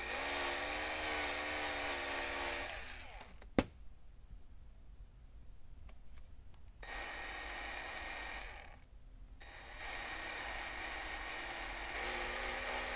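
Small Milwaukee cordless buffer running with a whine that wavers in pitch as its felt pad buffs compound on a camera lens. It stops about three seconds in, a single sharp click follows, and then the buffer runs again in two short stretches.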